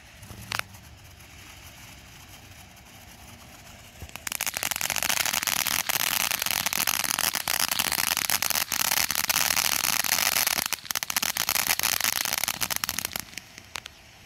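Ground fountain firework spraying sparks: a single pop early on, then about four seconds in a loud, dense crackling hiss sets in and runs for about nine seconds before dying away.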